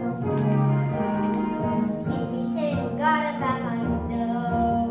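A boy singing a musical-theatre number over orchestral accompaniment, with the voice clearest from about two seconds in.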